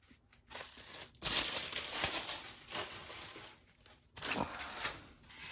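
Packaging being crinkled and crumpled by hand, in rustling spells: one running about two seconds from a second in, and a shorter one about four seconds in.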